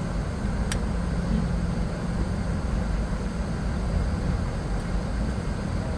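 Cabin noise inside a Boeing 717 taxiing slowly at idle, a steady low rumble and hum from its idling Rolls-Royce BR715 engines and cabin air. A single sharp click comes near the start.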